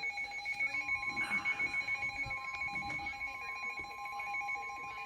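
Weather radio receivers sounding electronic alert tones: a rapid, high-pitched pulsing beep sounds throughout, and about a second in a steady long tone starts, the NOAA Weather Radio warning alarm tone that comes before a flood warning is read.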